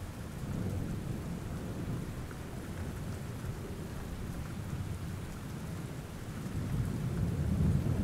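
Steady rain with low rolling thunder, the rumble swelling briefly about half a second in and again near the end.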